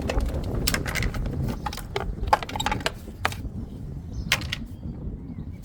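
Broken debris being pulled out of a crash-damaged car's front end: an irregular run of clicks, knocks and rattles over a low rumble.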